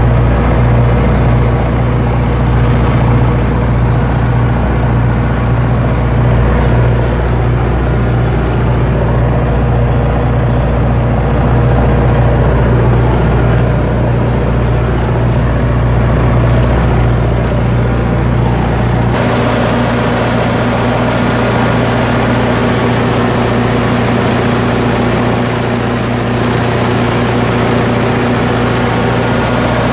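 Caterpillar 3208 V8 diesel engine of a 150 kW generator set running steadily at constant speed. About two-thirds of the way through, the sound turns brighter, with less low rumble.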